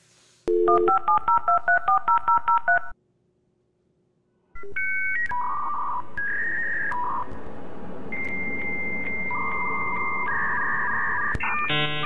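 Dial-up modem connecting: a quick run of about a dozen touch-tone dialing beeps, a short pause, then the handshake's shifting steady tones and hiss.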